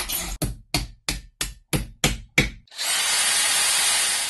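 Workshop sound effects: a run of quick, sharp hand-tool strokes, about three a second, then a power tool running steadily for about a second and a half.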